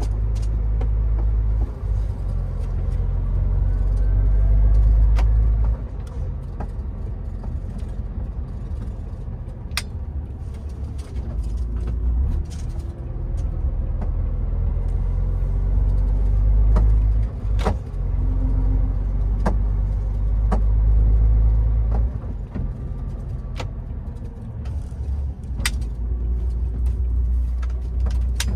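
Low vehicle rumble that swells and eases every few seconds, with scattered sharp clicks and knocks.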